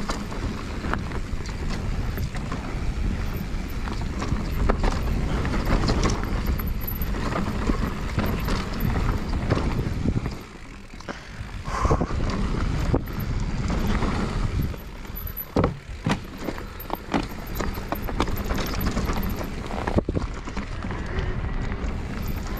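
Mountain bike riding down a rough dirt trail: continuous tyre noise over the ground with a running string of sharp knocks and clicks from the bike rattling over bumps, briefly quieter for about a second near the middle.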